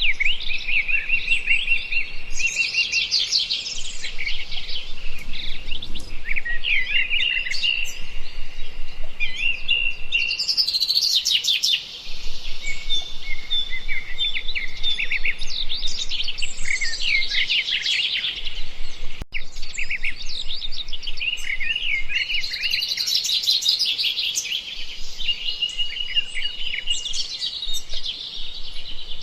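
Songbirds chirping and singing continuously, a dense chorus of rapid high chirps and trills that break off briefly twice.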